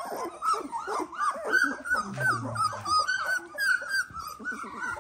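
A litter of 18-day-old Dalmatian puppies crying together: many short, high, rising-and-falling squeals overlapping, several a second, with a brief low note about two seconds in. The crying is the puppies' distress at being unsettled in a newly moved pen.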